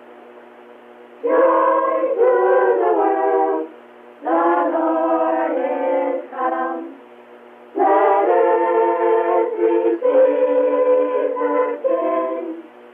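A group of children singing a Christmas carol together, in three phrases with short breaths between. The sound is thin and narrow, from an old cassette tape recording.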